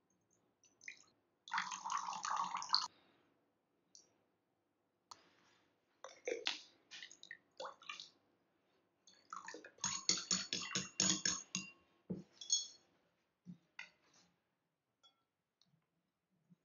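Soy sauce and other seasoning liquids poured from bottles into a porcelain bowl, a splashing pour about a second and a half in. Scattered clicks and clinks against the bowl follow, thickest in a rapid run around ten seconds in.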